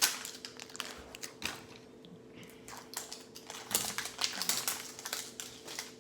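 Irregular crinkling and clicking of plastic packaging as a Mini Brands capsule ball is handled and unwrapped, with a faint steady hum underneath.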